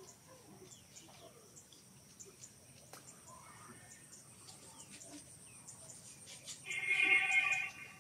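A long-tailed macaque gives one loud call on a steady pitch, lasting about a second, near the end. Under it runs a faint, steady high insect drone with scattered small chirps.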